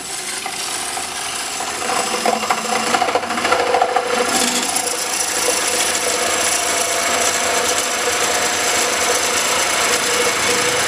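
Curved coring knife of a Oneway coring system cutting deep into a spinning wooden bowl blank on a lathe: a continuous rasping cut with a faint steady ringing tone under it, growing louder over the first couple of seconds and then holding steady. The cut is nearly through, and the core is almost parted off.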